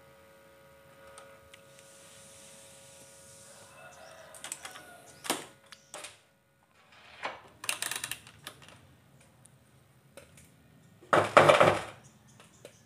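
Clicks, knocks and light rattles of circuit boards and multimeter test leads being handled on a cluttered repair bench, with the loudest cluster of sharp clicks near the end. A faint steady hum fades out in the first few seconds.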